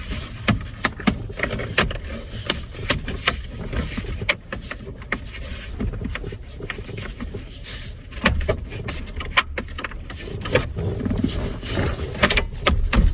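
Plastic steering-column covers of a GM pickup being handled and snapped back together: scattered sharp clicks and knocks as the pieces hook and pop into place.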